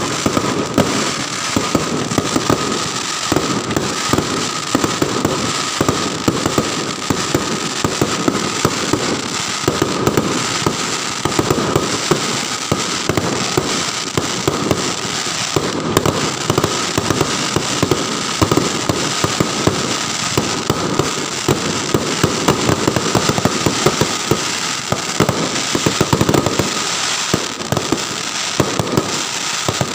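New Year fireworks and firecrackers going off without a break: a dense, continuous run of overlapping bangs, pops and crackles, with a thin steady high tone running beneath.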